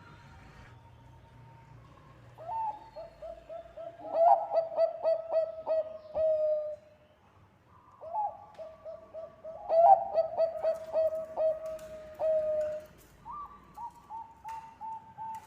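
Zebra dove (Bangkok perkutut) cooing song: two long phrases of rapid, rhythmic staccato coos, each ending in a held note, with another phrase starting near the end.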